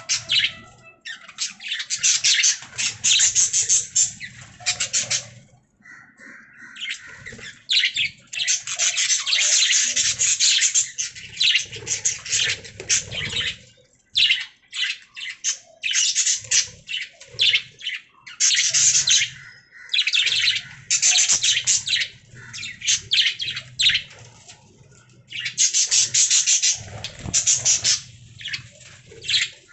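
Budgerigars chattering and chirping in quick runs of high notes, broken by short pauses every few seconds.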